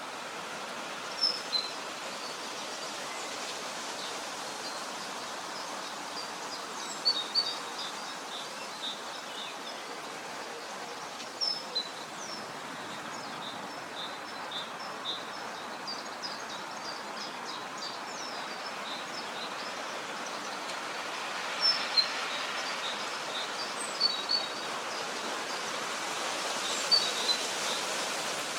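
Wild birds singing, with short high chirps and tweets scattered throughout and a quick run of repeated notes in the middle, over a steady hiss of outdoor ambience.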